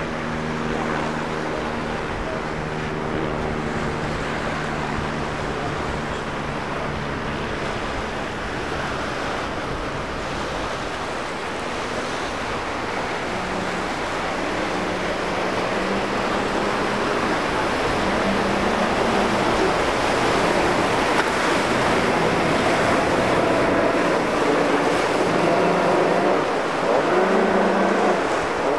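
Waves breaking and rushing water, with a boat's outboard motor whose pitch rises and falls every few seconds as it is throttled through the chop. The engine grows louder over the second half as the boat comes close.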